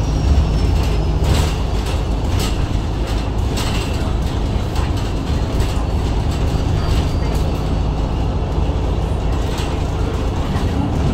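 Interior running noise of a MAN Lion's City G articulated diesel bus under way: the MAN D2066 six-cylinder diesel and drivetrain give a steady low drone, with a few short rattles from the cabin fittings.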